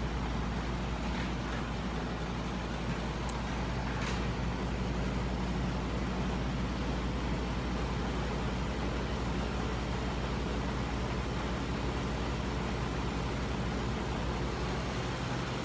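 Steady mechanical running hum of a home-built flywheel-and-crankshaft machine driven by an electric motor, with scooter motors turning as generators, and a faint click about four seconds in.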